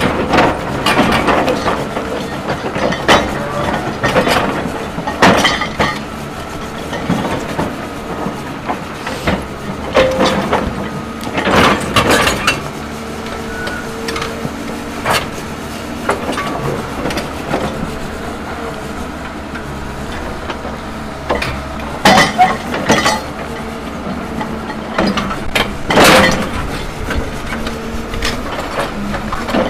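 Excavator engine running steadily under load, with about ten sharp scraping clanks as the steel ripper tooth grinds and strikes ground frozen too hard to break up.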